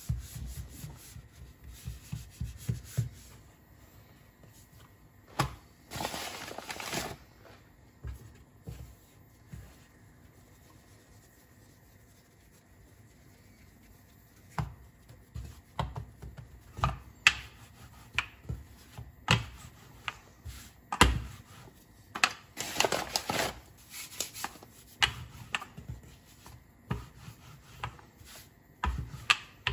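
Hands working bun dough on a work surface: rubbing and patting with scattered soft knocks, as the dough is thinned at the edge, turned over and shaped. Two longer rubbing passes, with a quieter stretch in between.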